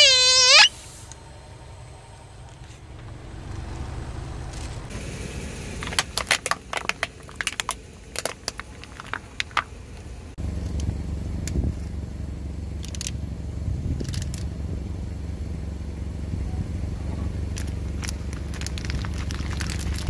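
A car tyre rolling over and crushing plastic toys. It opens with a short squeal, then a dense run of sharp crackling snaps of breaking plastic. After a cut, a steady low rumble runs under scattered cracks and squishes as trays of water beads are pressed under the tyre.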